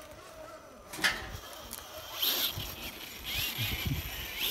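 A radio-controlled scale rock crawler working over a rusted car body and a wooden plank ramp: a sharp knock about a second in, then scraping and clatter with short rising whines of its electric motor.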